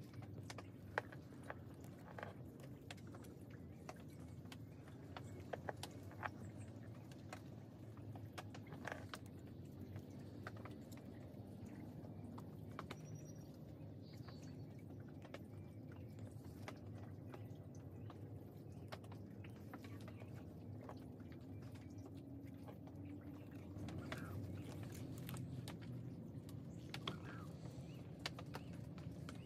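Faint handling sounds from wiring a Premna bonsai: scattered light clicks and rustles as fingers wrap and bend wire around the branches and leaves, over a low steady background noise.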